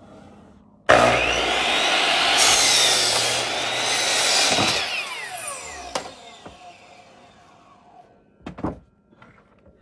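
Power saw starting up suddenly about a second in and cutting through wood for about four seconds. It is then released, and its blade winds down with a falling whine. A short knock comes near the end.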